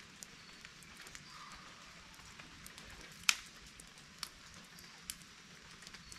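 Faint clicks and knocks of kindling being handled in a steel campfire ring, with one sharper click about three seconds in and smaller ones after it, over a steady faint outdoor hiss.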